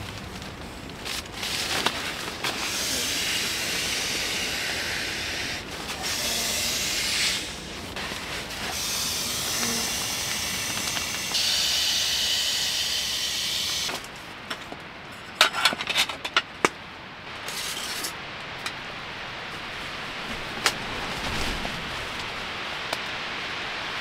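Storm wind gusting against a tent: a hissing rush that swells and drops in several waves, with a few sharp clicks and rustles partway through, then a steadier lower hiss of wind and rain.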